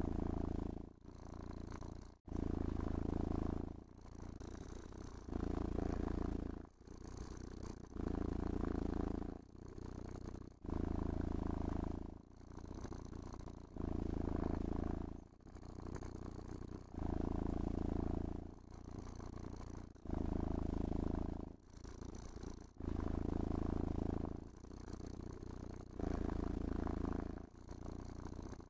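Domestic cat purring continuously while being brushed and stroked, in an even rhythm of louder and softer phases that alternate about every second as it breathes out and in.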